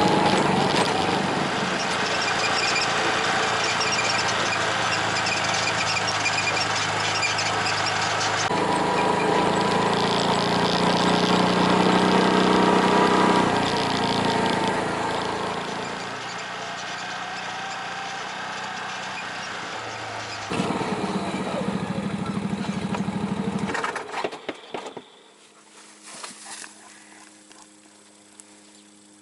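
Off-road vehicle engine running while driving along rough two-track trails, heard in several short clips that cut abruptly from one to the next. Near the end it gives way to a much quieter steady hum with a few knocks.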